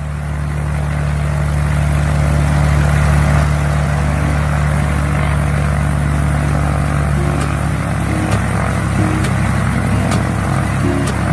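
Cessna 172's piston engine and propeller running steadily at a low, even pitch, fading in at the start. About seven and a half seconds in, the sound turns rougher and more uneven.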